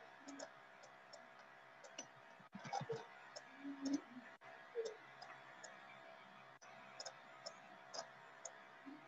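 Faint, irregular clicks and ticks of a stylus tapping on a pen tablet during handwriting, about one or two a second, with a few soft low sounds near the middle.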